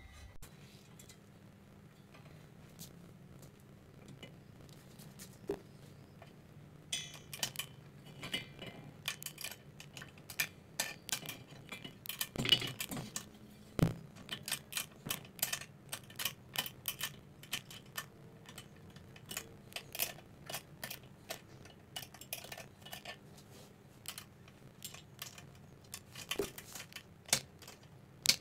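Scattered metallic clinks and clicks of hand work on a cylinder mower's rear roller: loose steel parts, nuts and bolts being handled and adjusted. There is a louder knock of metal about halfway through.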